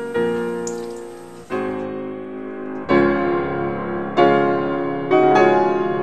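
Background piano music: sustained chords, a new one struck every second or so, each fading slowly.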